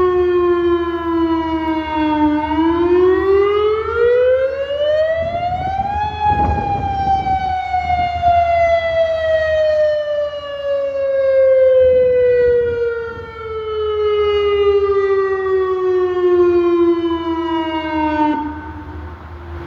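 Federal Signal Modulator electronic outdoor warning siren sounding a wail on test: the tone dips slightly, rises over about four seconds, then falls slowly for about twelve seconds before cutting off abruptly near the end.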